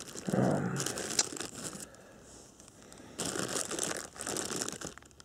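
Thin plastic bags and wrap crinkling and rustling as they are handled and pulled open, in two spells: about a second in and again from about three seconds in. A brief vocal sound comes just before the first spell.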